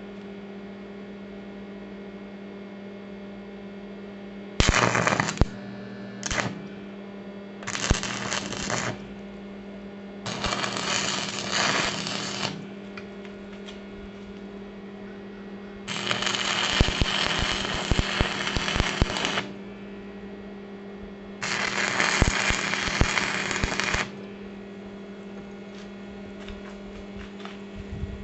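Stick (arc) welder's arc crackling and sizzling in six spells, from a fraction of a second to about three and a half seconds long, as small steel brackets are tack welded, with a steady electrical hum underneath.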